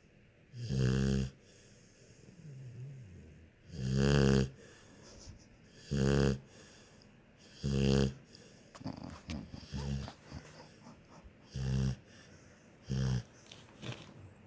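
A sleeping pet snoring, with six pitched snores coming about every two seconds and fainter breathing sounds between them.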